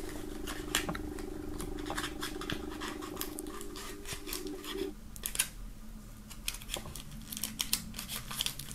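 Fingers prying and scraping at a small cardboard case whose contents are stuck, making scattered light clicks and scratches. Under them a faint steady hum stops about five seconds in.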